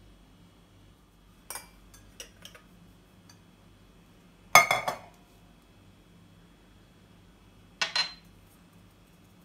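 Metal and glass kitchenware knocking and clinking: a metal sieve, flour cup and glass mixing bowl handled while flour is tipped in. A few light clinks, a loud clatter about four and a half seconds in, and another sharp clink with a short ring near the end.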